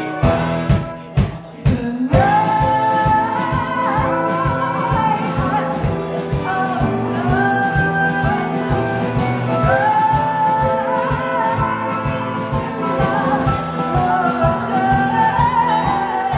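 Live band playing, with a woman singing over keyboard and a steady drum beat. The music thins out for about a second near the start, then the singing comes in.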